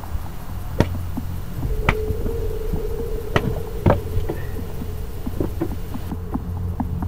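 A steady low machine hum with four sharp knocks, about a second in, near two seconds, and twice close together near four seconds. A steady whine sounds for about two seconds in the middle.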